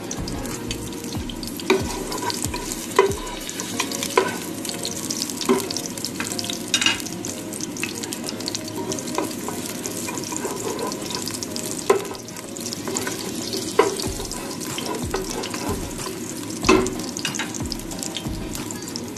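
Chopped garlic sizzling steadily in hot cooking oil in a pot while being stirred, with a utensil knocking against the pot in sharp taps every second or two.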